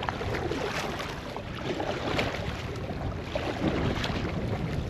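Wind buffeting the microphone over choppy water, with scattered splashes against a kayak.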